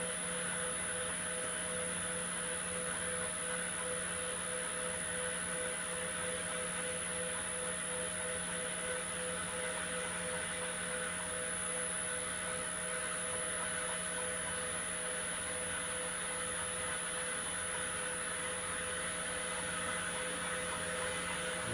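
Steady hum and hiss of the open-channel flume's pumps running, with a few constant tones and no change in level.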